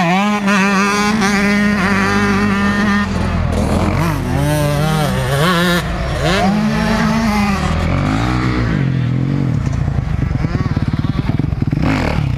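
Motocross bike engines running on a dirt track. For the first few seconds one engine holds a high, steady rev, then its pitch climbs and drops several times as the throttle opens and closes. In the second half a bike close by runs at low revs with a fast, pulsing beat.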